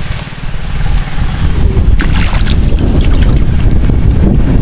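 Wind buffeting the microphone: a loud, low rumble, with sharp crackles added from about two seconds in.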